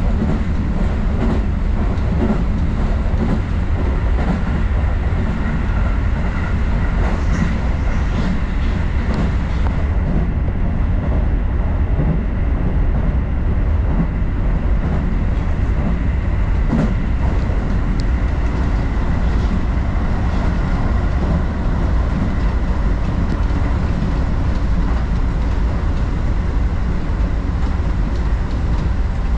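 Keio Sagamihara Line electric commuter train running along the track, heard from inside the car: a steady low rumble with light clicks of the wheels over the rails.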